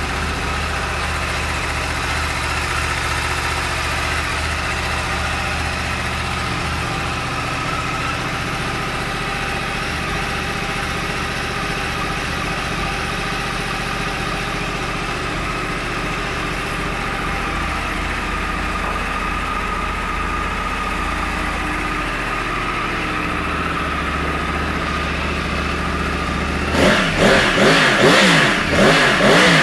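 2014 Yamaha YZF-R1's crossplane inline-four engine idling steadily through its stock exhaust, then revved several times in quick succession near the end.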